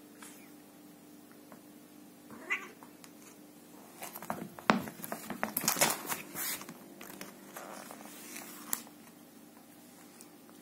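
Sphynx cat playing with a string toy: a short meow about two and a half seconds in, then a loud flurry of scuffling, scrabbling and knocks on the floor as it pounces, with a last click near the end.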